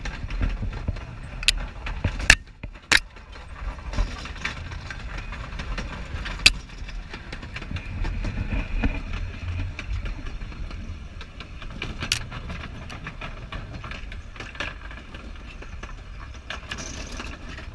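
Narrow-gauge railway coach rolling past close by: a low rumble of steel wheels on the rails, broken by sharp irregular clicks and clanks from the wheels and rail, several in the first few seconds and another about twelve seconds in.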